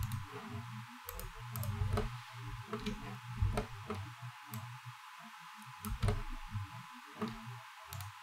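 Computer mouse buttons clicking: a dozen or so scattered sharp clicks at uneven intervals, with soft low thumps among them.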